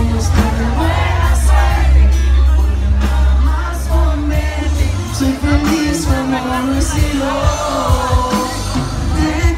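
A live regional Mexican band with a male lead singer, acoustic guitars and drums, heard loud with heavy, boomy bass.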